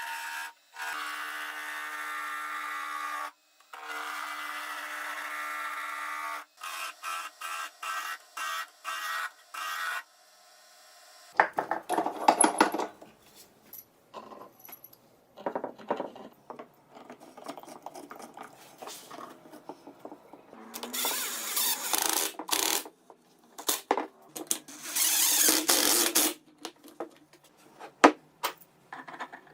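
Workshop tool work: a small power tool runs steadily with a few short stops, cuts off about ten seconds in, then gives way to irregular scraping and rubbing bursts and knocks.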